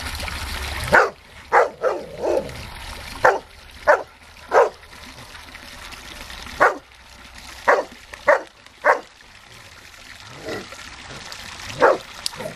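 Bernese mountain dog barking: about a dozen short single barks at irregular intervals, some coming in quick pairs.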